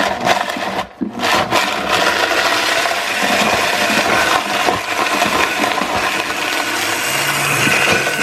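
Countertop blender running at speed, grinding dry Hot Cheetos into a coarse powder. The sound drops out briefly about a second in, then runs on steadily.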